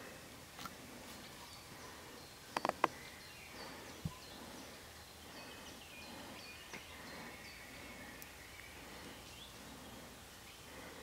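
Quiet woodland ambience at dusk with short, high bird chirps repeating through it. About two and a half seconds in comes a quick run of three or four sharp cracks, then a single low thud a second and a half later.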